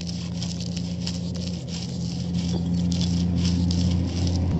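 Cylindrical stone roller of an ammi grinding stone being worked back and forth over chilli, tamarind and fried curry leaf paste on the stone slab: stone scraping on stone with a quick, irregular patter of small crunches as the coarse mixture is ground. A steady low hum runs underneath.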